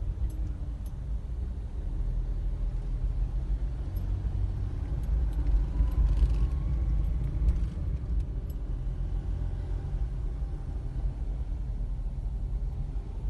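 Low, steady rumble of a car driving, heard from inside the cabin, with a few faint ticks.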